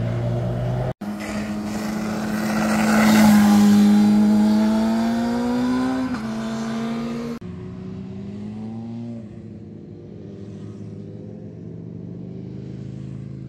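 Engines of vehicles climbing a hairpin road, heard from the roadside: one engine grows loud and accelerates with a climbing pitch for several seconds. After an abrupt cut a quieter engine rises briefly, then the sound fades out.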